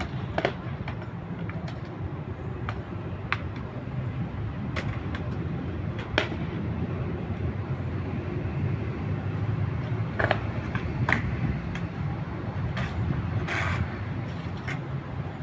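City square ambience: a steady rumble of road traffic, with scattered sharp clacks and knocks every second or so and faint distant voices.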